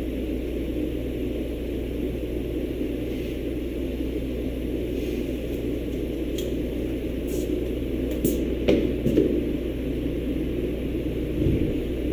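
Steady low rumbling background noise, with a few short sharp clicks about eight to nine seconds in.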